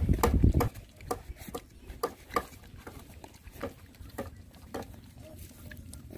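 Puppies lapping milk from a plastic plate: irregular wet licking clicks, a few a second. A low rumble covers the first moment and then drops away.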